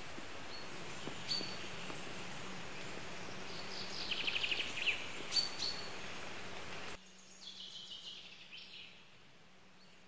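Small songbird calls over a steady outdoor background: a few sharp high notes and a quick rattling series about four seconds in. About seven seconds in the background drops away abruptly and a run of thin high chirps follows.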